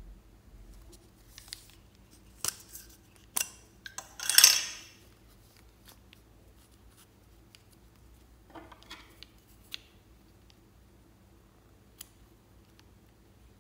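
Hard plastic lipstick tubes handled close to the microphone: a few sharp clicks, then a short scraping rustle about four and a half seconds in, the loudest sound, followed by a softer rustle and scattered light ticks.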